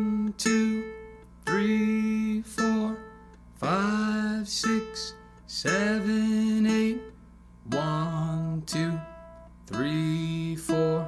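Open ukulele string plucked with the thumb about once a second and left to ring, with a man singing the count on the same note. About three-quarters of the way through, the plucking moves to the next string and the pitch changes.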